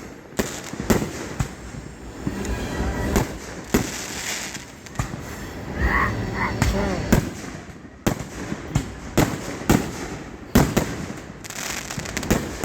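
Aerial fireworks going off: an irregular run of sharp bangs, several a second at times.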